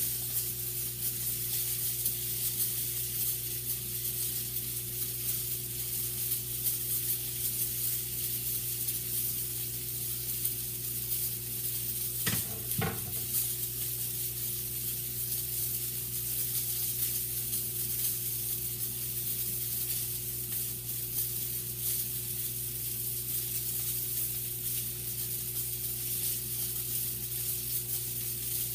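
Sausage sizzling steadily in a frying pan, with a steady low hum beneath and two short knocks about halfway through.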